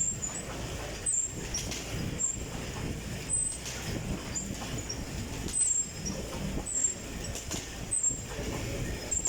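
Stationary exercise bike being pedalled steadily: a low rumbling whoosh with a short high squeak repeating about once a second.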